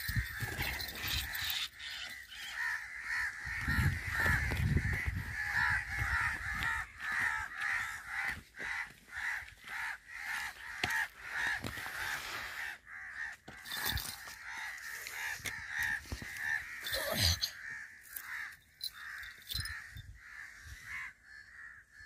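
A myna giving harsh, rapidly repeated distress screeches while caught and held by a shikra, with low thumps and rustling about four seconds in.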